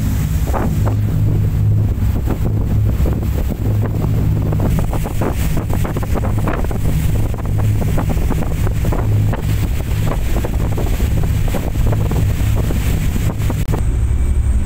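Fast passenger ferry running at speed: a steady low engine drone, with wind buffeting the microphone and the rush of the wake. Near the end the wind and water noise drop away and the engine drone remains.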